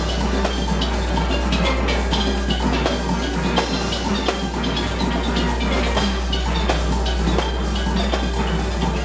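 A large steel band playing: many steel pans ringing out a calypso tune together over a steady drum and percussion rhythm.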